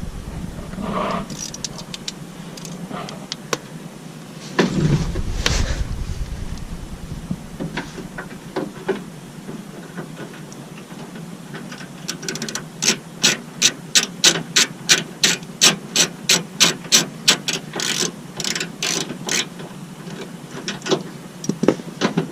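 Ratchet wrench clicking in a long even run, about three clicks a second, as the bolt on a sliding-door handle is turned. Scattered knocks and a brief scraping of handling come about a third of the way in.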